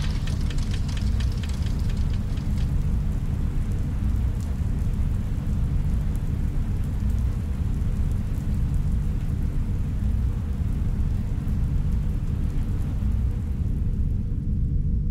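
Ambient room soundscape: a steady deep rumbling drone with a faint hiss above it. A quick run of light clicks comes in the first two seconds or so, and a single click follows a couple of seconds later.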